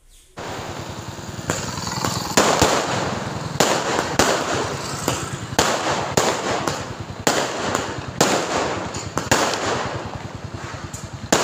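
Aerial fireworks bursting over a street: a continuous crackle with a sharp bang roughly once a second.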